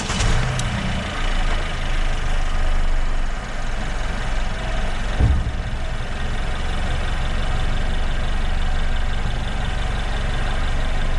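Car engine idling steadily just after being started for a battery cranking test, with a single low thump about five seconds in.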